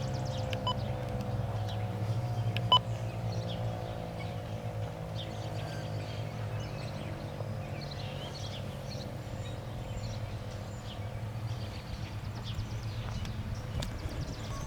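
Federal Signal 2001-130 electromechanical warning siren winding down after its test, its tone fading and slowly dropping in pitch. A single sharp click about three seconds in.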